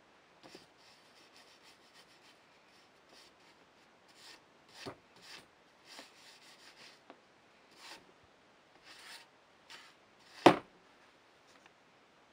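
Paintbrush strokes rubbing along wooden strips: a series of short scratchy swishes. Two sharp knocks cut in, a small one about five seconds in and a much louder one near the end.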